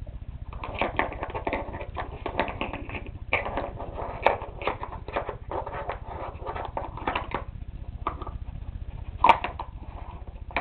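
Nina Ottosson Dog Magic treat puzzle clattering as a dog noses and paws its pieces: rapid runs of light knocks and clicks, then a few scattered ones, with one louder knock about nine seconds in.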